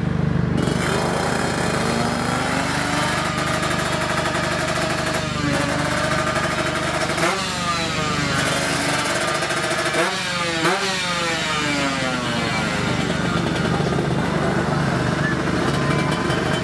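Tuned Kawasaki Ninja 155cc two-stroke drag motorcycle running hard, its engine pitch climbing and dropping sharply twice, about 7 and 11 seconds in, as it shifts up through the gears over steady engine noise.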